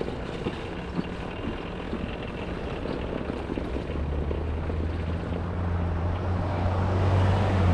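A motor vehicle's engine, a low steady hum that comes in about four seconds in and grows gradually louder, over a steady rush of road noise.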